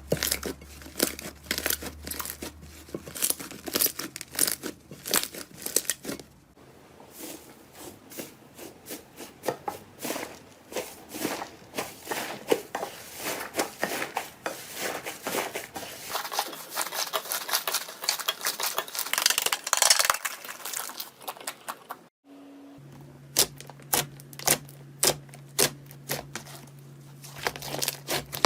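Slime being squeezed and handled, making dense, irregular crackling clicks and pops. After a brief break about 22 seconds in, a low steady hum sits under the clicks.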